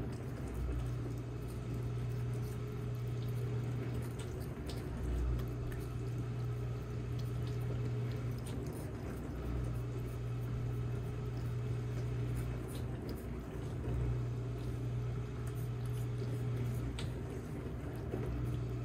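A cat licking pumpkin purée off a small plastic spoon, with many faint clicking mouth sounds over a steady low hum.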